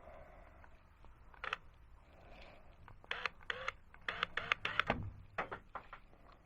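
A quick run of sharp clicks and clacks, about a dozen, most of them between three and six seconds in, with a low knock near five seconds.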